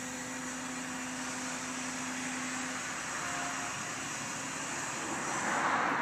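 Construction-site machinery and vehicle noise: a steady engine hum over a broad rushing noise, the hum dropping away about halfway through and the rushing noise swelling near the end.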